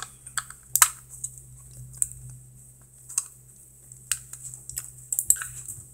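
Scattered light clicks and crackles of a plastic Squishy Pops blind capsule being handled and picked open by fingers.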